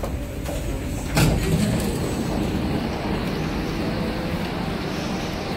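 Steady low rumble and hiss of an MRT train standing at the platform, with one sharp knock about a second in.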